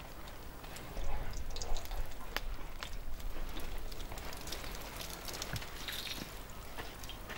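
Wood campfire crackling, with scattered sharp pops and snaps over a low rumble that comes up about a second in.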